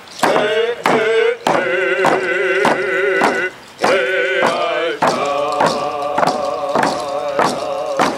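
Indigenous hand-drum song: several men chanting in unison while beating hand frame drums in a steady beat, about one and a half strikes a second. Voice and drums break off briefly about three and a half seconds in, then go on.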